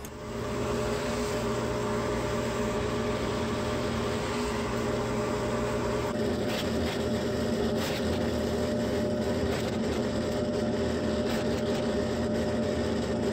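Bench drill press running steadily with an even motor hum while drilling small holes in a pine board, with a few short clicks near the middle.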